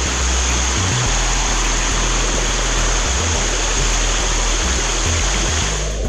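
Water of a small waterfall rushing and splashing down over rock slabs into a shallow stream: a steady, loud rush.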